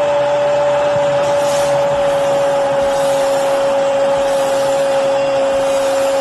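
A football commentator's long drawn-out "gooool" cry, held on one steady pitch that sags slightly, celebrating a goal, over stadium crowd noise.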